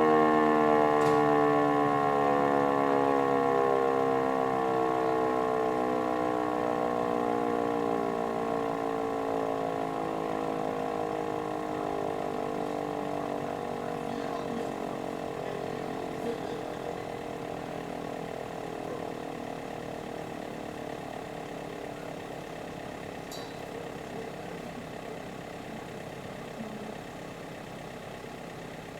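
Electromechanical fire-alarm siren spinning down after its alarm: a wail of several tones that falls slowly in pitch and fades away.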